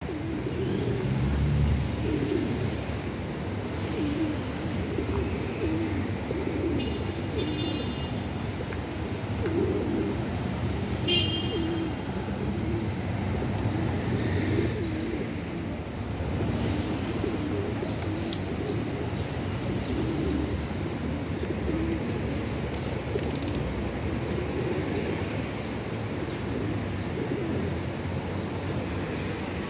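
A flock of feral rock pigeons cooing continuously, many overlapping low calls, over a steady low rumble of traffic.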